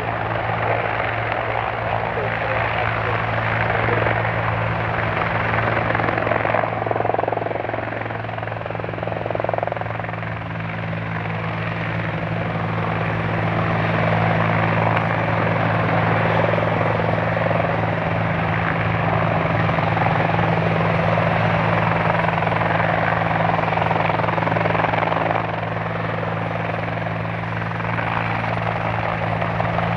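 CFM56 jet engines of a Boeing 737-800 running at taxi power as it moves along the runway and lines up: a steady low hum under a broad rushing hiss, dipping slightly in loudness twice.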